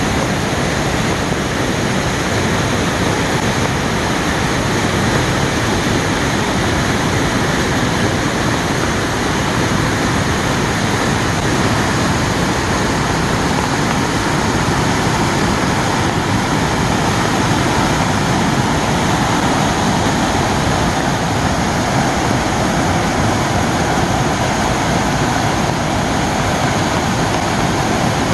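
A waterfall on a mountain valley stream, swollen by heavy rain, making a loud, steady rush of falling water.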